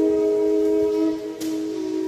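Walking-stick drone flute in E playing two notes at once: a steady low drone under a held melody note that steps down about two-thirds of the way in, with a short breathy puff near the middle. The notes ring in the reverberation of a long stone railway tunnel.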